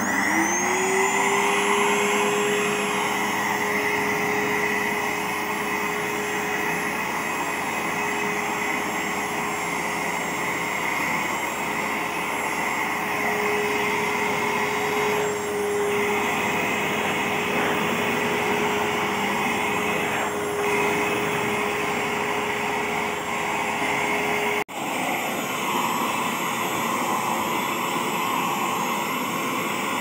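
Aardee canister vacuum cleaner switched on, its motor whining up to speed within about a second, then running steadily with a loud, even rush of suction. About 25 seconds in the sound breaks off for an instant and carries on without the steady whine.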